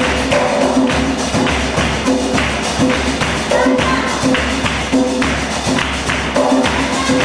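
Live worship music with a hand drum beating a steady rhythm under voices singing.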